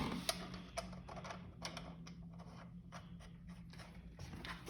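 Light, irregular metal clicks and ticks of small bolts being handled and started by hand into the front wheel assembly of a DollyXL scooter, over a faint steady hum.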